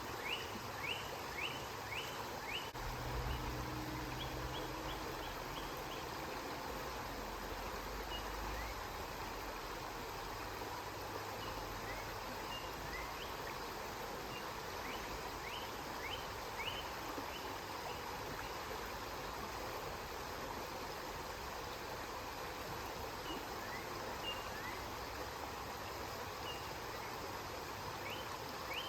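River water flowing steadily, with runs of short, high chirps repeating several times a second in bursts. A faint low rumble comes in a few seconds in and fades after several seconds.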